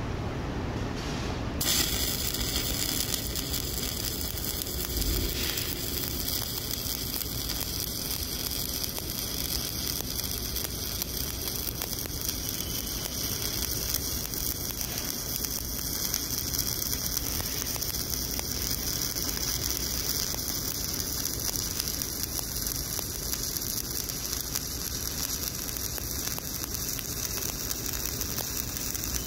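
Stick-welding (SMAW) arc on an E7018 electrode, struck about two seconds in and then running steadily as the second pass of a horizontal groove weld is laid down.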